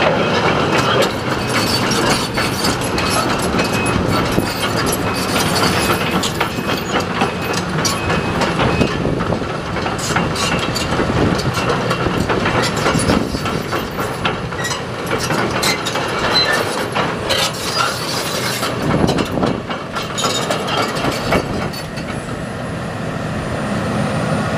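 Case CX300D crawler excavator travelling on gravel: its diesel engine runs steadily while the steel track chains clank and rattle over the rollers and sprockets in a dense run of clicks.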